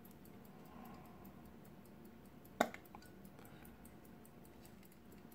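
A sharp metallic click about two and a half seconds in, and a softer one just after, as the hinged inner cover of a 1919 Rolex gold pocket watch is opened. Faint, fast ticking of the running watch goes on underneath.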